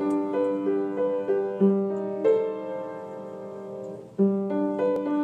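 Background piano music: a gentle phrase of repeated chords, with one chord held and fading away before the phrase starts again about four seconds in.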